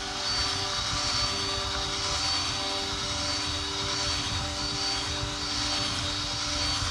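Cordless drill running steadily under load, its bit boring an 8 mm hole through a steel flat bar, with a thin high whine over the grinding of the cut.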